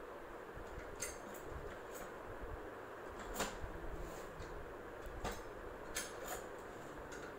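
Faint steady hiss of room noise with about half a dozen light ticks and short scratches of a uni-ball Eye rollerball pen tip on paper as strokes are drawn.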